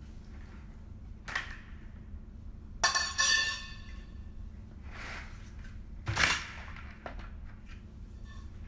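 Knocks and clinks of garment rack parts, metal tubes and a plastic caster base, being handled during assembly. There is a clatter with a short metallic ring about three seconds in and a sharp knock a little after six seconds, with lighter knocks between.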